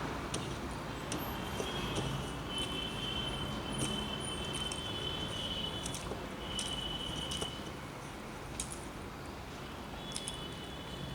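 Eating sounds: scattered small clicks of chewing and of fingers mixing rice on a plate, over a steady background hiss. A faint, thin high tone is held for several seconds in the middle and comes back near the end.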